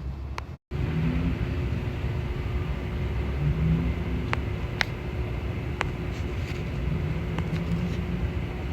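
Steady low rumble of a running engine with a constant hum through it, and a few sharp clicks.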